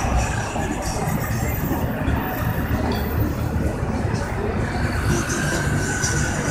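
Street traffic: a steady low rumble of vehicle engines, with a truck driving past close by.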